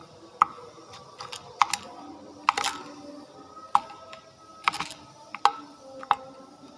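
Sharp, irregular clicks and taps, more than a dozen, some single and some in quick clusters of two or three.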